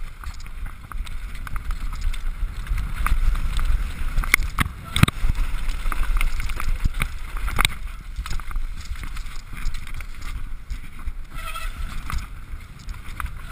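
Wind buffeting the camera microphone over the rattle of a Turner downhill mountain bike running fast down a rough dirt trail, with sharp knocks as it hits bumps, the loudest about five seconds in.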